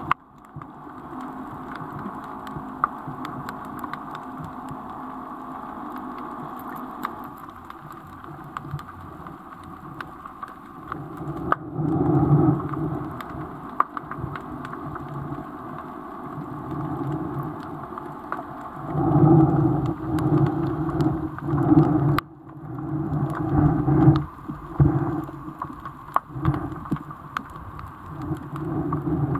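Muffled rumbling water noise picked up by an action camera in an underwater housing, with scattered small clicks. It gets louder and more rumbling about a third of the way in and again through the second half.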